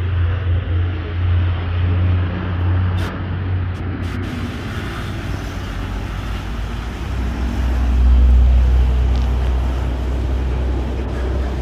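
Low, steady engine rumble from heavy vehicles; its pitch drops and it grows louder about eight seconds in.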